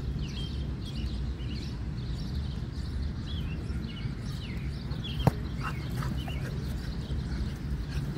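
Small birds chirping on and off over a steady low outdoor rumble, with a single sharp click about five seconds in.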